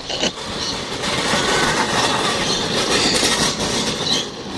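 Push lawnmower being run and slid around in a drift: a steady, loud, rattling noise.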